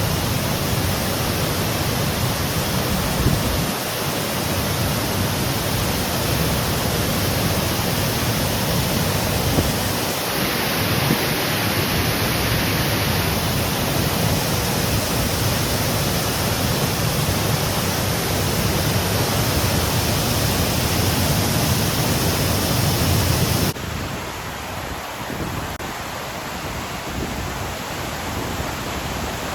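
Waterfall's steady rushing water, loud and even. About 24 seconds in, the sound drops suddenly to a quieter, thinner rush.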